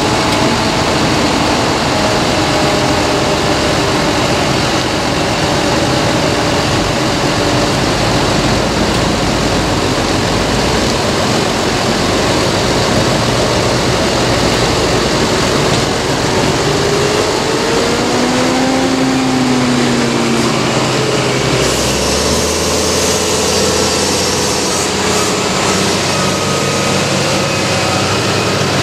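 Diesel engines of a line of large modern tractors running as the tractors drive past one after another, a steady loud engine sound with the engine notes rising and falling as each one passes.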